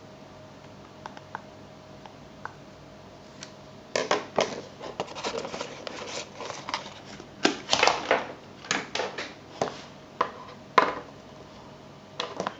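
Hands handling a white cardboard box and its inner tray: a few faint clicks, then from about four seconds in an irregular run of cardboard scrapes, rustles and taps as the tray and cables are lifted out.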